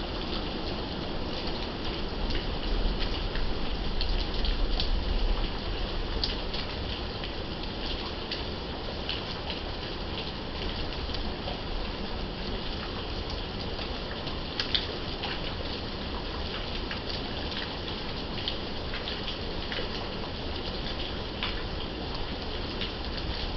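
Steady rain falling, with many sharp individual drop taps scattered through it. A low rumble swells during the first few seconds, then fades.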